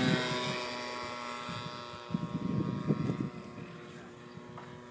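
Nitro RC Vought F4U Corsair's 120-size glow engine droning at a steady pitch and fading as the plane flies away. A few low thumps come about two to three seconds in.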